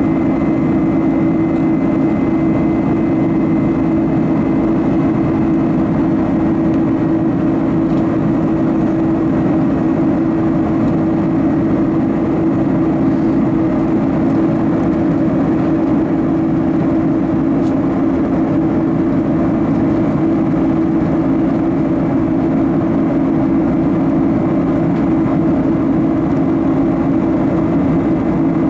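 Steady cabin drone of a Boeing 767-300ER in flight, heard from just forward of its GE CF6 turbofan engine: engine and airflow noise with a strong low hum and a faint high tone, unchanging throughout.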